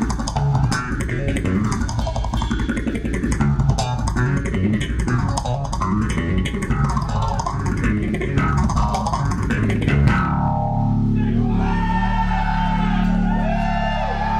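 Solo electric bass played loud through effects: a fast, busy run of picked notes with a tone that sweeps up and down over and over. About ten seconds in it breaks off into a held low note, with slide notes gliding and wavering in pitch above it.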